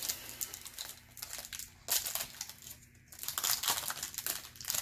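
A trading card pack's wrapper crinkling as it is handled and opened, in irregular crackling bursts, loudest about two seconds in and again from about three seconds on.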